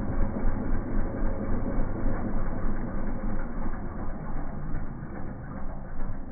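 Four-wheeler (ATV) engine running as the quad crawls through grass and mud, a muffled, unevenly pulsing mechanical sound.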